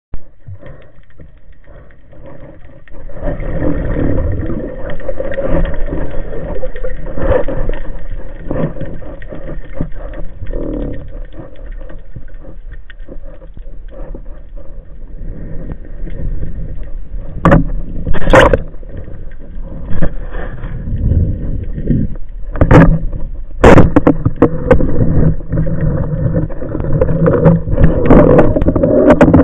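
Muffled underwater noise picked up through a speargun-mounted camera housing: water rushing past and the freediver's movement as he swims down. It gets louder a few seconds in, and several sharp knocks come in the second half.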